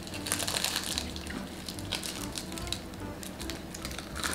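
Crisp crackling and crunching of roasted seaweed (nori) sheets as baked sushi is wrapped and eaten, over soft background music.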